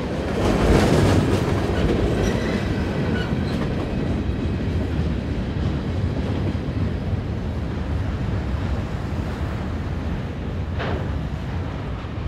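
Freight cars rolling over a grade crossing and away, wheels clacking over the rail joints, the rumble loudest at the start and fading as the end of the train recedes. A single sharp clank near the end.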